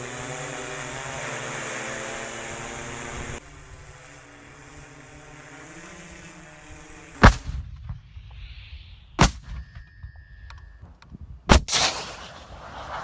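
A steady buzzing motor hum with a high hiss that cuts off about three seconds in, then three loud weapon reports about two seconds apart, the last one trailing off.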